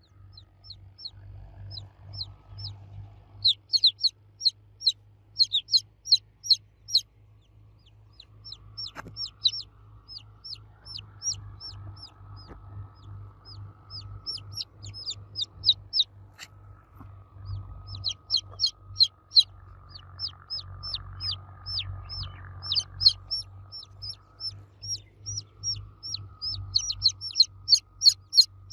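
Baby chicks cheeping loudly: a fast, insistent series of short, high peeps, each sliding down in pitch, several a second, with a couple of brief lulls.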